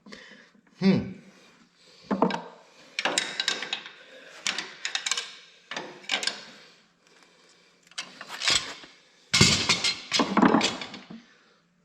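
Metal hand tools knocking, scraping and clattering against a tractor's hydraulic pump as it is worked loose: a run of irregular clanks, with the loudest cluster near the end.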